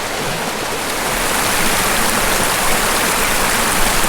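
Steady rush of water from a creek waterfall, getting a little louder about a second in.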